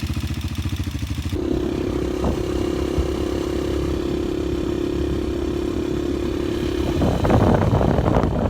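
Rusi KRZ 200 motocross bike's engine running, idling with an even beat at first. About a second in it changes abruptly to a steadier, higher note. Near the end a rough rushing noise takes over.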